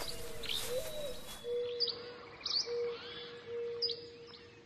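Birds chirping: short, high, downward-sweeping chirps every second or so, over a lower steady note that comes and goes several times.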